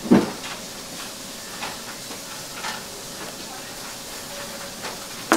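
Raw beef pieces thudding down on a cutting board, loudest just after the start and again near the end, with a few light knife taps on the board in between, over a steady kitchen hiss.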